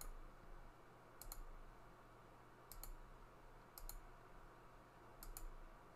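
Computer mouse clicking: about five pairs of quick, faint clicks, a second or so apart, as geometry is selected and checkboxes are ticked.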